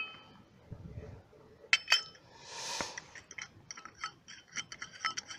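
Light metallic clicks and clinks as a cap-type oil filter wrench is fitted onto a new spin-on oil filter, two sharper knocks about two seconds in and then a run of small clicks. The wrench sits loose on the filter because its diameter is too big to fit.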